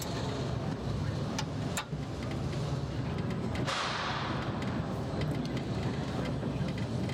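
Mail Rail's narrow-gauge underground passenger train running slowly into the platform with a steady low rumble, a few sharp clicks in the first two seconds, and a hiss that rises about four seconds in and fades.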